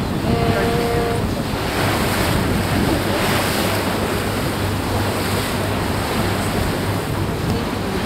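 Wind buffeting the microphone and water rushing past the hull of a moving boat, over a steady low engine hum. A short steady tone sounds about half a second in.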